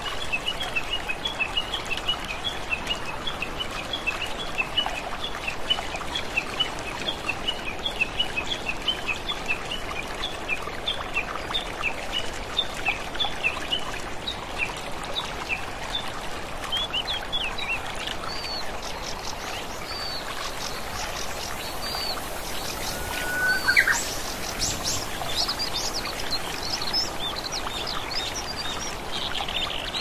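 Waterfall ambience: a steady rush of falling water with birds chirping over it. Quick repeated chirps, about four a second, fill the first half; the calls then become more varied and higher, with one louder rising call about three-quarters through.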